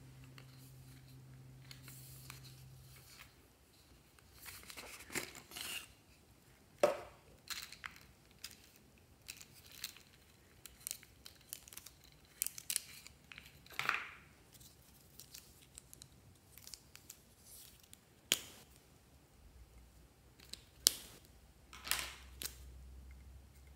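Plastic felt-tip pens handled and pulled apart by hand: scattered sharp plastic clicks and clatters with short rustles in between.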